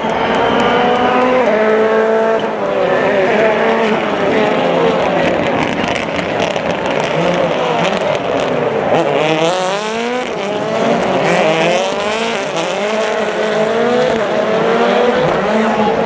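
Rally car engines running hard on the circuit, revving up and shifting gear, so the pitch climbs and drops back over and over. At times more than one car is heard at once.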